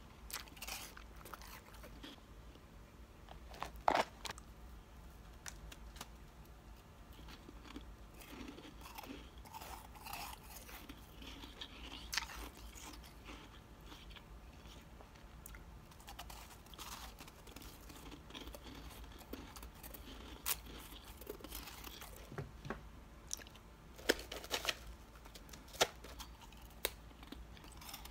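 Powdery chunks of freezer frost being bitten and chewed, soft crunches scattered throughout, with a sharp crunch about four seconds in and a cluster of sharper crunches near the end.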